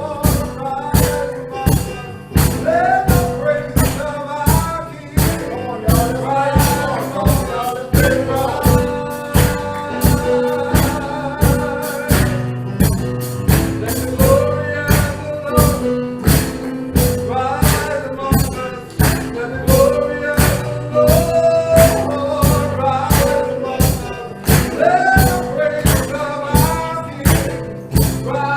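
Church choir singing a gospel song, with percussion keeping a steady beat.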